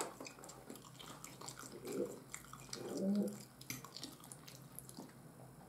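Close-miked chewing while eating fried egg, sausage and bread: soft wet mouth clicks and smacks, with two brief low murmurs about two and three seconds in.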